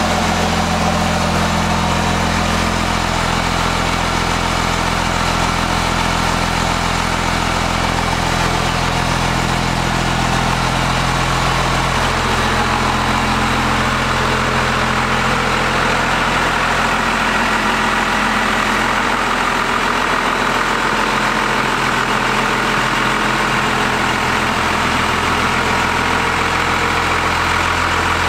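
An engine idling steadily, its tone shifting slightly about twelve seconds in.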